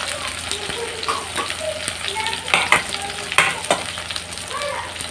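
Sliced onions frying in hot oil in an aluminium kadai: a steady sizzle, with a few sharp clicks about halfway through.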